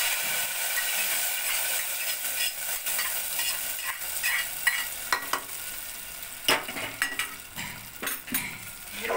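Hot ghee tempering with dried red chillies and mustard seeds sizzling as it is ladled from a small pan into the rice-and-lentil mixture in an aluminium pressure cooker. Ladle scrapes and clinks come through over it. The sizzle fades, and a few metal knocks follow in the second half as the pan is set back on the stove.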